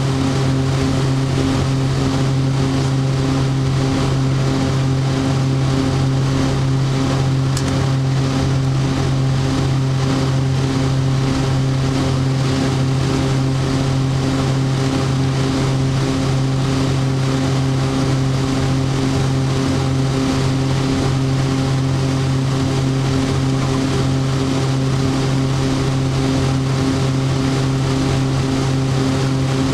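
Twin turboprop engines and propellers of a Beechcraft King Air B100, heard inside the cockpit on approach to land: a loud, steady low propeller drone with several even tones above it over a rushing noise, unchanging throughout.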